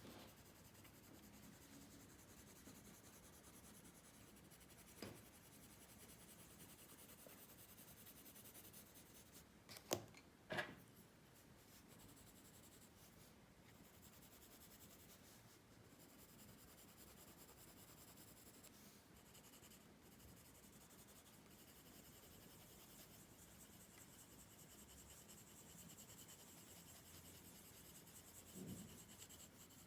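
Faint pencil strokes scratching on paper, with two sharp clicks about ten seconds in and a soft knock near the end.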